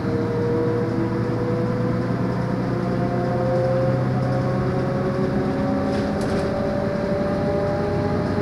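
Leyland Lynx single-deck bus under way, its drivetrain running with a steady rumble and a whine that rises slowly in pitch as it gathers speed. There is a brief faint rattle about six seconds in.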